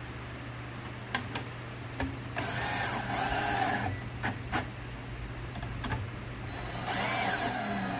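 Electric drill running in two bursts of about a second each, its motor whine bending in pitch, with sharp knocks and clicks of wooden parts being handled in between.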